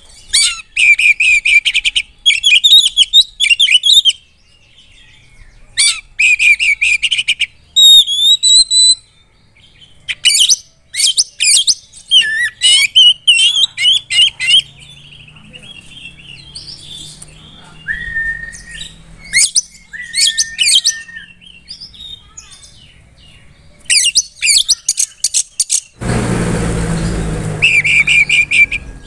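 Oriental magpie-robin singing loudly: bursts of rapid, varied phrases and trills, with a couple of long flat whistles partway through. Near the end a rushing noise lasts about two seconds before the song resumes.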